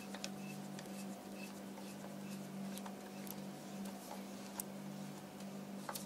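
Faint, irregular small metallic clicks of a 10 mm socket turning the bottom nut onto the air-piston side of a Fox Float suspension fork's lower leg, over a steady low hum.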